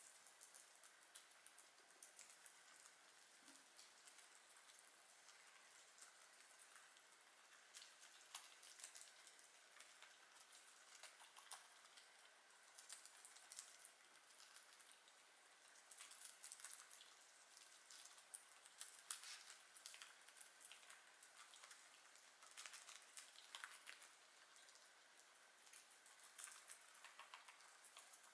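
Guinea pigs chewing lettuce and carrot: faint, fast, irregular crunching clicks.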